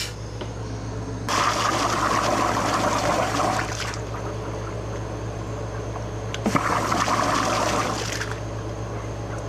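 Water splashing through a John Deere D170 lawn tractor's plastic gas tank as it is flushed to wash trash out of it. It comes in two bursts of two to three seconds each.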